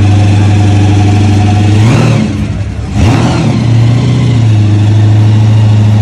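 Supercharged V8 of a 1957 Chevrolet idling steadily, revved up twice in quick succession about two and three seconds in, then settling back to idle as the car pulls slowly past.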